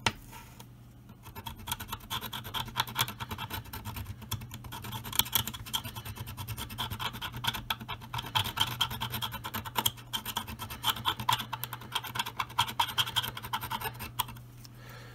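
A scalpel blade scraping the black paint off the metal rim of an M42-to-Nikon lens adapter in rapid, short strokes, baring the metal where the chip will be glued. The scraping starts about a second in and stops near the end.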